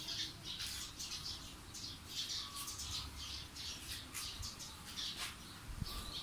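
Birds chirping and squawking in rapid, irregular short calls, several a second.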